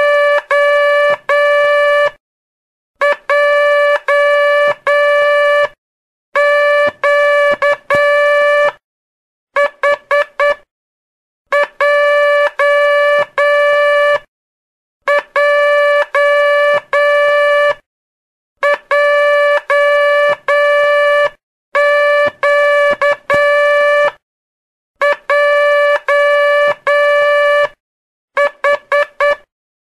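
Morse code practice tone: a steady beep keyed into short and long elements, sent as letter groups with pauses of about a second between them, drilling the letters Q, J and H. Several groups are four quick dits, the letter H.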